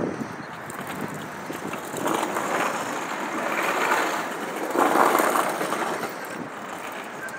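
Road traffic passing: tyre and engine noise swelling up twice, once over a couple of seconds from about two seconds in and again about five seconds in, then easing off.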